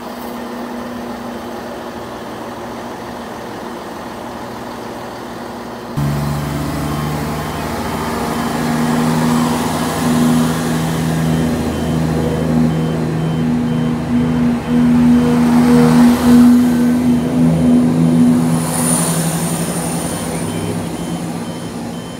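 Greater Anglia Class 170 Turbostar diesel multiple unit pulling away from a station: its underfloor diesel engines run quietly at first, then open up sharply about six seconds in. The steady engine note grows louder as the cars pass, peaks past the middle, and fades near the end as the train draws away.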